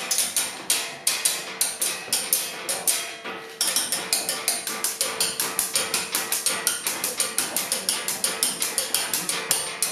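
Percussion sticks striking a wooden tabletop in a fast, even rhythm of sharp knocks, about four to five a second, with a faint held note beneath.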